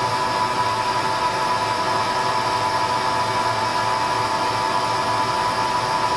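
CDK6160 CNC lathe running, a steady machine noise with a constant high whine.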